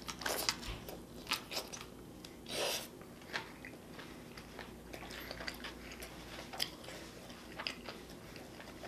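Close-miked chewing and biting of food: irregular wet mouth clicks and crunches, with a longer, louder bite about two and a half seconds in.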